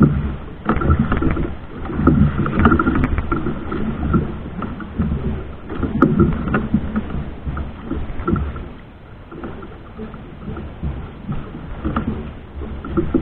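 A boat's motor running on open water, its sound rising and falling unevenly.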